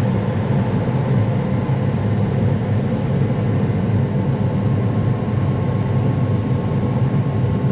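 Combine harvester running steadily while cutting soybeans: a constant low mechanical drone with a faint steady whine above it.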